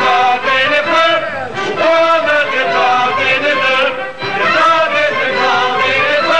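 Music with several voices singing together, a sustained run of song with no spoken lines.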